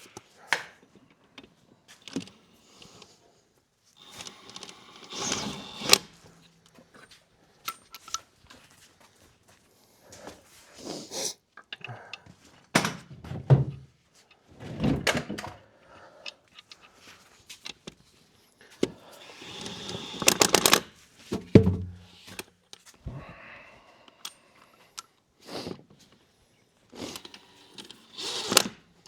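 Intermittent clanks, thuds and short noisy bursts of tools and wheels being handled during a truck tire swap, with the loudest bursts about five, fifteen and twenty seconds in.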